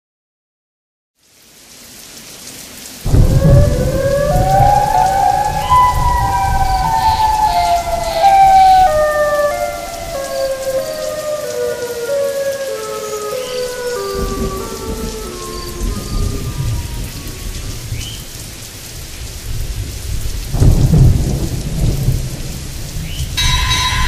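Steady rain with deep rolls of thunder coming and going, over which a slow line of tones steps downward in pitch for about ten seconds. Near the end, music comes in.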